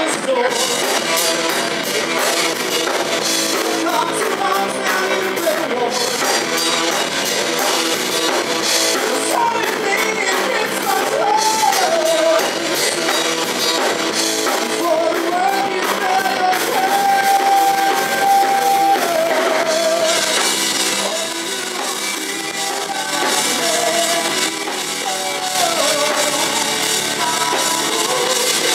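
A live rock band playing a song: electric guitar, bass guitar and drum kit, with a man singing over it. About seventeen seconds in, the voice holds one long note with vibrato.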